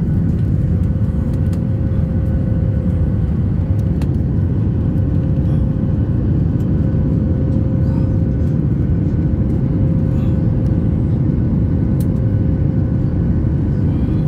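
Inside the cabin of a Boeing 737 MAX 8 climbing after takeoff: the steady low roar of its CFM LEAP-1B engines and the rushing air, with a faint steady hum running through it.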